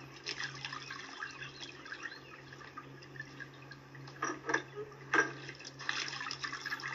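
Water splashing and dripping from a cast-iron hand pump as hands cup it and splash it on a face, with a few louder splashes about four to five seconds in.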